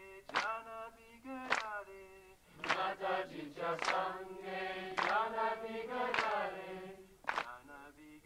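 Marathi devotional song (bhajan) sung by a group, kept in time by a sharp percussive beat about every 1.2 seconds. A single voice leads at first, and a fuller chorus of many voices sings from about two and a half seconds in until near the end.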